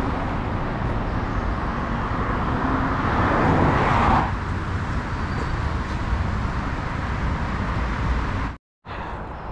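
Road traffic running past close by, with one vehicle swelling past about four seconds in. The sound cuts out for a moment near the end.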